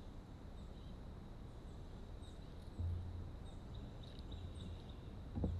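Quiet river ambience: scattered faint bird chirps and a thin steady high insect-like drone over a low rumble that swells about three seconds in.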